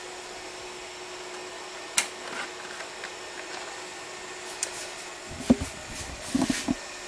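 Steady hum of the powered, opened HP Ultrium 460 LTO tape drive, with a sharp click about two seconds in. Near the end, a few soft knocks and clicks as the plastic tape cartridge is handled against the drive's metal chassis.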